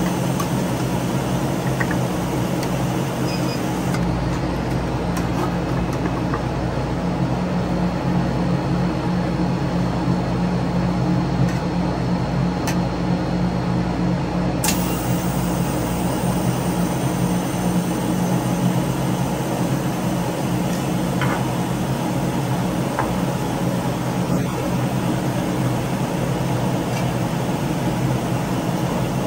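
Steady low mechanical hum with several pitched tones in it, running without a break, and a few faint, short clicks scattered through it.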